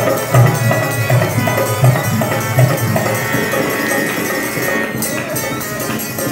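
Live traditional Indian folk music accompanying a string puppet show: a drum beating about one and a half strokes a second, with a held high note over it in the middle and a quicker run of sharp percussive hits near the end.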